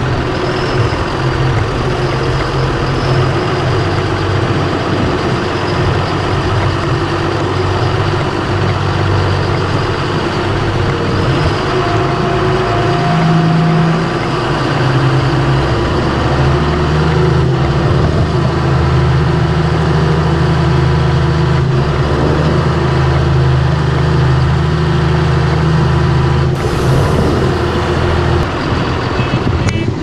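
A John Deere 6920S tractor's six-cylinder diesel engine running steadily while it hauls a loaded grain trailer. The engine note changes about halfway through, with a deeper, stronger hum.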